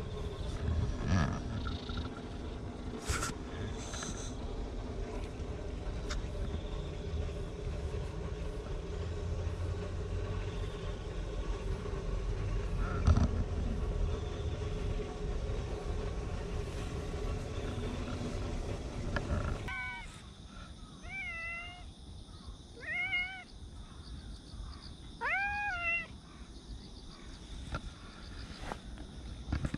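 Domestic cat meowing several times in short calls that rise and fall in pitch, the last one longer. Before the meows there is a steady low rumble with a few knocks.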